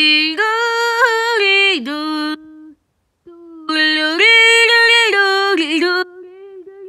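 A high voice singing alone, without clear words, in two loud phrases of held notes with a short break between them, trailing off into softer notes near the end.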